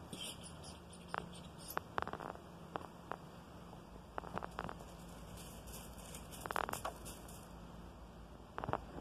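Footsteps and shuffling on a gravel path: scattered light crunches and clicks, with short clusters about two seconds in, around the middle and near the end.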